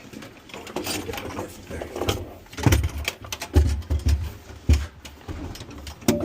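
Irregular knocks, bumps and scrapes as an HRV unit is maneuvered up against its mounting bracket, with several heavy thumps in the middle.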